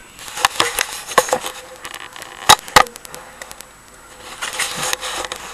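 Scattered light clicks and knocks from handling close to a webcam's microphone, with two sharp knocks a few tenths of a second apart about two and a half seconds in.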